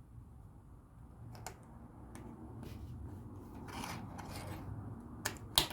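LEGO plastic pieces being handled and clicked together, with soft rustling and a few sharp clicks, the loudest near the end.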